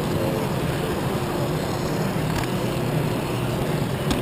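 Lego monorail train's motor and gear drive running steadily as it travels along its track, a constant low whirring hum, with a couple of light clicks about two and four seconds in.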